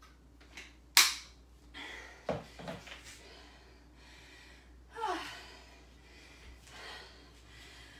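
A woman breathing hard after a high-intensity tabata interval: short, sharp exhalations, the loudest about a second in, and a sighing breath that falls in pitch about five seconds in.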